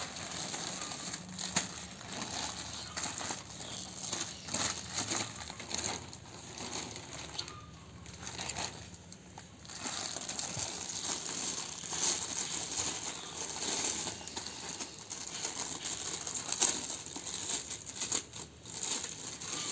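Plastic packaging crinkling and rustling on and off as hands open a polythene courier bag and handle a clear plastic-wrapped parcel.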